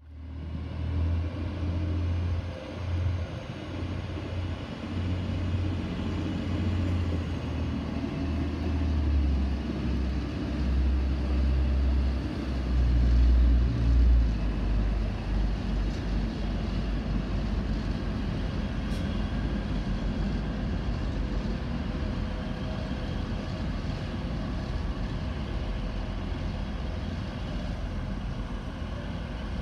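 Railway station sound of diesel multiple-unit trains. A Class 158 diesel unit idles at the platform with a strong, uneven low rumble; the sound then becomes a steadier rumble as a train runs along the far tracks.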